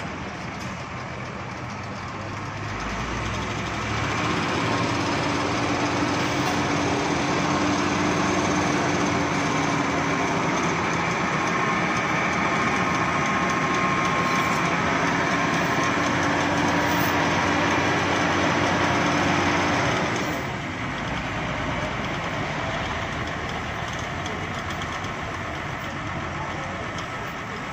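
Heavy vehicle engine running. It speeds up about three seconds in, holds high and steady with a faint whine until about twenty seconds, then drops back to a lower, idling level.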